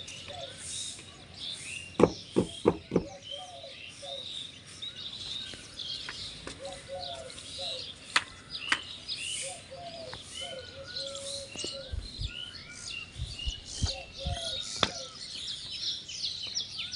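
Many birds chirping and calling at once. About two seconds in come four quick sharp knocks, with a few single clicks later: the plates of a pair of small plate-loaded dumbbells knocking as they are picked up and curled.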